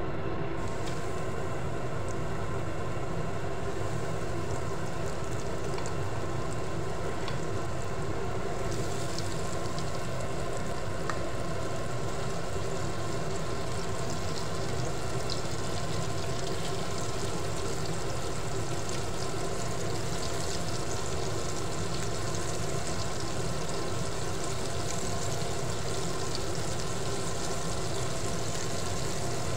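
Floured chicken pieces frying in hot oil in a pot, a steady sizzle that grows fuller about eight seconds in as more pieces go into the oil. Under it runs a steady mechanical hum.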